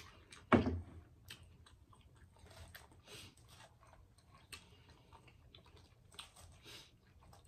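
Close-miked chewing and small mouth sounds, with light clicks of a fork picking through a bowl of salad. A single sharp knock about half a second in.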